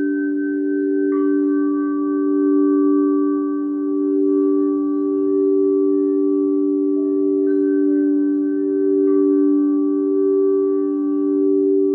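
Quartz crystal singing bowls ringing: two deep tones hold steady with a slow swell and fade, while higher bowls are struck about a second in and twice more near the end, each note ringing on over the drone.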